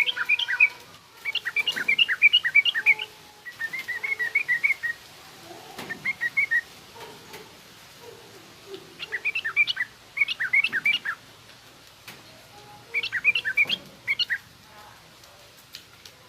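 Yellow-vented bulbul (trucukan) singing in short bouts of rapid, bubbly chattering notes, six phrases with pauses of a second or two between them.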